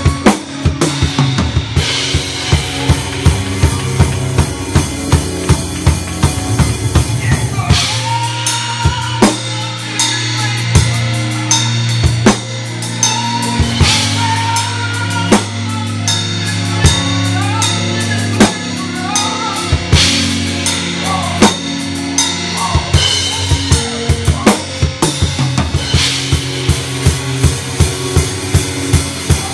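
Drum kit played live in gospel music: steady bass drum, snare and cymbal hits over a sustained bass line and chords. A wavering melody line comes in about eight seconds in and fades after about twenty seconds.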